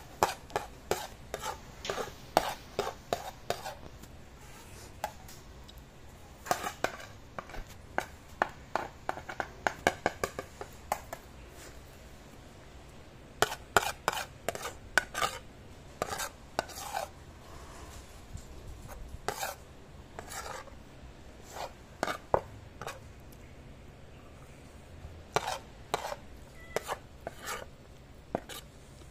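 Metal spoon clinking and scraping against a ceramic plate while scooping up rice, in bursts of quick clicks with short pauses between.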